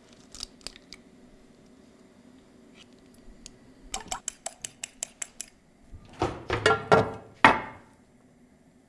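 A fork whisking egg whites in a glass bowl, clicking against the glass in a quick run of taps. It ends in several louder clinks and knocks with a brief ring. A few light taps come in the first second.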